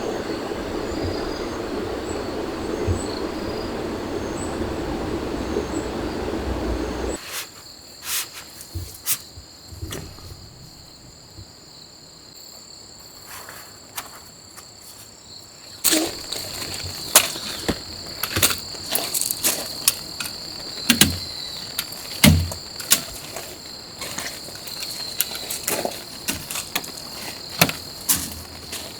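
A steady rushing noise cuts off abruptly about seven seconds in. After it come insects chirring in two steady high tones, with scattered clicks and knocks that grow more frequent in the second half.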